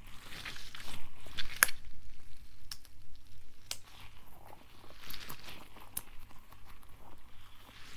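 Fidget toys handled close to the microphone: scattered sharp clicks, several in a row, over soft rustling and scratching.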